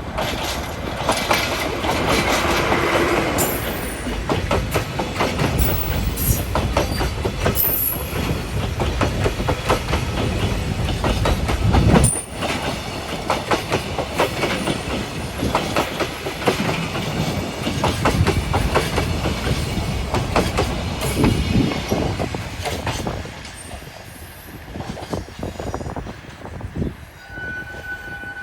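Container freight train hauled by a diesel locomotive rolling past, its wheels clattering over the rail joints in a rapid, uneven run of clicks over a low rumble. The clatter fades away in the last few seconds.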